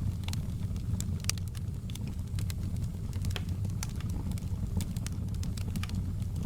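Wood fire burning with a steady low rumble and irregular sharp pops and crackles, several a second.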